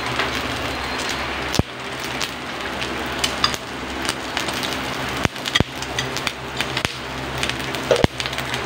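Pork, eggplant and sausages sizzling steadily on the grill plate of an Imarflex 8-in-1 electric griller, with a handful of sharp clicks from utensils tapping the grill.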